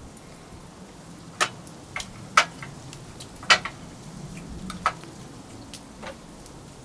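Wood fire crackling, with about six sharp, irregular pops over a low steady hiss.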